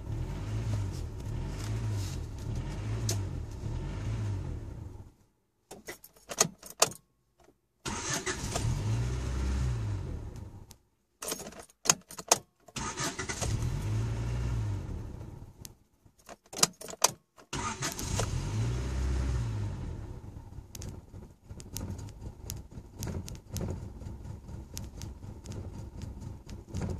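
Honda Civic's D15B7 engine idling unevenly with a pulsing throb, cutting out abruptly three times. Each stall is followed by clicks and a restart that swells and then sags, and near the end it runs more quietly with small ticks. The unsteady idle and stalling are the fault described for this car: revs that surge on petrol, and on LPG an idle that drops too low or dies.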